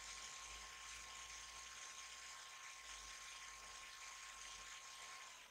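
Near silence: a faint, steady hiss with a thin, steady high whine running under it, and no distinct sounds.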